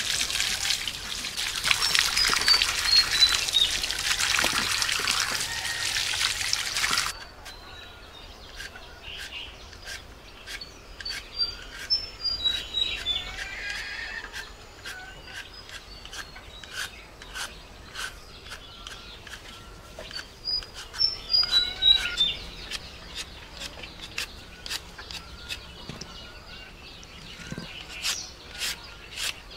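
Tap water pouring onto sweet potatoes and a concrete basin as they are washed by hand; about seven seconds in the water stops, giving way to short scraping strokes of a hand peeler on sweet potato skin. A bird repeats a short descending run of chirps three times.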